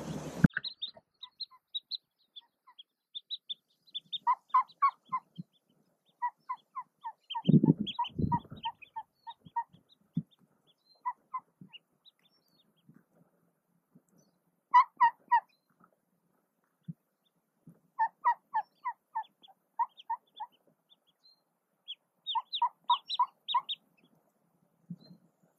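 Mallard hen on her nest giving runs of short, soft clucking quacks, four to six at a time. Thin high peeps of newly hatched ducklings come in the first few seconds, and there are a couple of low bumps of movement about a third of the way in.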